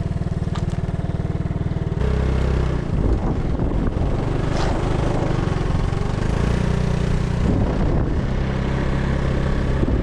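Small motorcycle engine running while riding, heard from the rider's position with wind rushing past. The engine runs at a steady beat at first, then turns louder and rougher from about two seconds in.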